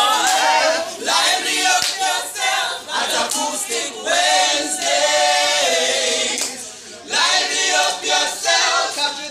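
A group of men and women singing together in harmony, unaccompanied, with a short break about two-thirds of the way through.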